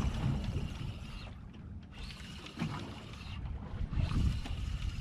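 Wind buffeting the microphone and choppy water lapping against a small boat's hull, swelling and easing a few times.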